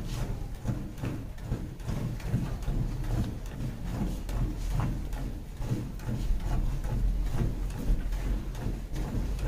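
A Gir-cross cow being milked by hand: milk squirting into a pail in quick, repeated strokes.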